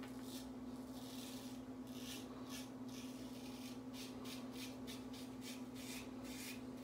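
Single-edge safety razor with a GEM blade scraping through lathered five-day stubble in a run of short strokes, a few a second, over a steady low hum.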